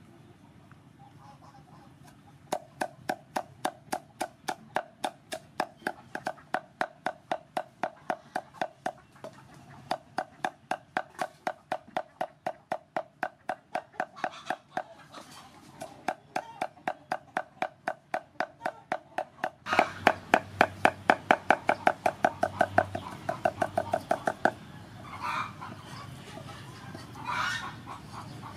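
A steel cleaver chopping dried red chillies on a wooden chopping board: a steady run of sharp knocks, about three or four a second, getting louder about two-thirds through and stopping a few seconds before the end. A few fainter scattered sounds follow.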